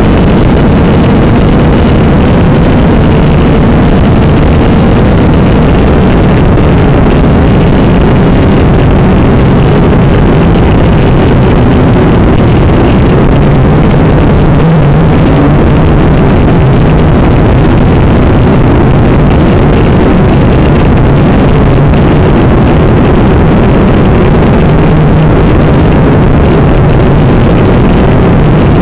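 Syma X5C quadcopter's small brushed motors and propellers whirring steadily, recorded very loud by the drone's own onboard camera, with a hum whose pitch wavers slightly.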